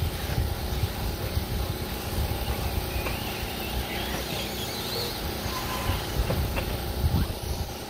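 Faint rising and falling whine of 1/8-scale electric off-road RC buggies racing on a clay track, under gusty wind rumble on the microphone.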